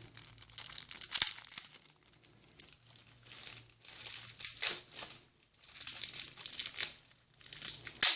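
Foil wrapper of a Magic: The Gathering booster pack crinkling and tearing as it is opened by hand, in irregular rustling bursts with sharp crackles about a second in and again at the end.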